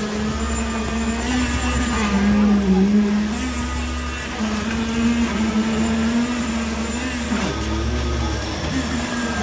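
Concrete-pour machinery running with a steady drone that wavers slowly up and down in pitch over a low rumble, as concrete is pumped through the hose onto the floor slab.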